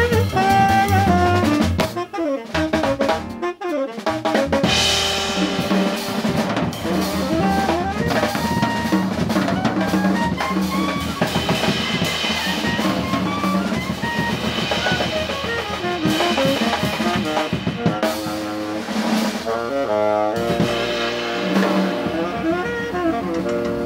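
Live jazz quartet playing: tenor saxophone leading over double bass, piano and drum kit. About two to four seconds in the band thins out to a few sharp drum hits, then the full band comes back in.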